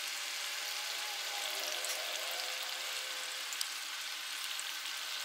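Masala with water and oil boiling and sizzling steadily in an open pressure cooker, a continuous hiss, with a faint tap about three and a half seconds in.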